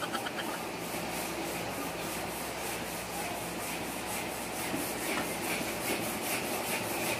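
Hand-operated stand-up air pump being worked up and down: repeated rubbing, whooshing strokes as air is pushed through the hose into an inflatable swimming pool.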